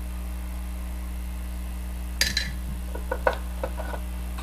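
Steady electrical hum, with one glassy clink a little over halfway through and a few light clicks and taps after it: small objects on a fly-tying bench being handled, such as the glass bottle of nail polish used as head cement.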